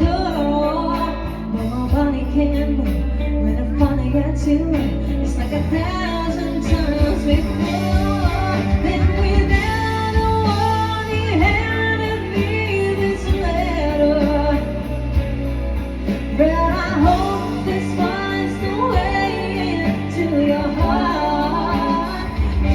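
Live band playing a song: a sung melody over guitar and a steady bass line.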